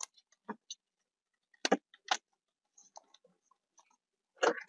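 Sparse plastic clicks and knocks as an Android head unit and its trim bezel are handled and pressed into the car's dashboard opening, with two louder knocks close together near the middle and fainter ticks after.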